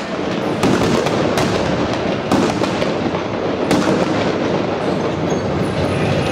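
Battle noise around tanks: a dense, continuous clattering din of tank engines and tracks, broken by four sharp cracks of gunfire in the first four seconds.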